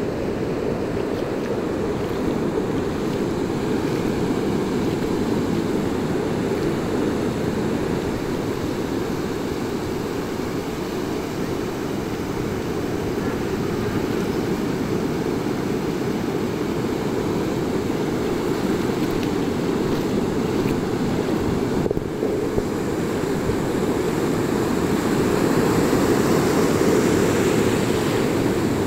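Ocean surf breaking and washing up a sandy beach, with wind buffeting the microphone as a heavy low rumble; the wash grows a little louder near the end.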